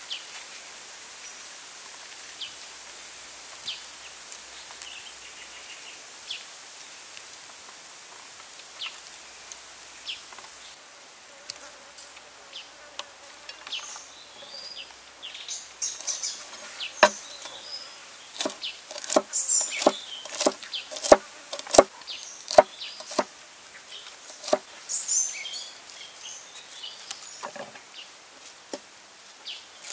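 Cleaver chopping yard-long beans on a wooden board: a run of sharp knocks, about one or two a second, in the second half. Earlier there is only a steady high insect buzz with light rustling and faint ticks of vegetables being handled.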